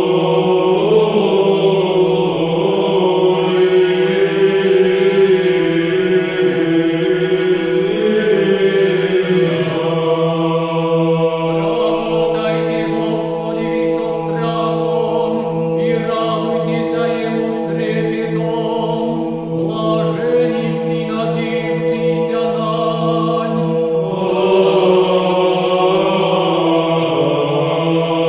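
Background music: a choir chanting over a steady held drone, with the sung lines moving more busily in the middle.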